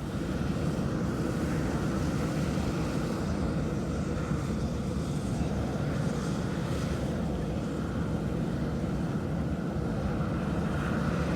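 Steady low rumbling noise with a faint hiss above it, with no pauses or separate events.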